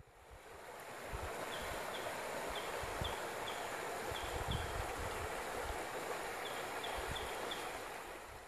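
Creek water running over rocks: a steady, even rushing that fades in over the first second and fades out near the end. A bird's short high chirps come in small groups through it.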